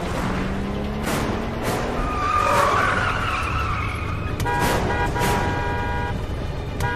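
Car engine revving up under a steady low rumble, with tyres squealing about two to three seconds in. A car horn then sounds, held for about a second and a half from about four and a half seconds, and again near the end.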